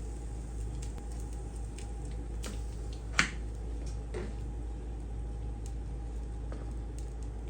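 Small clicks and soft handling noises from assembling a burger by hand, with one sharp click about three seconds in, over a steady low hum.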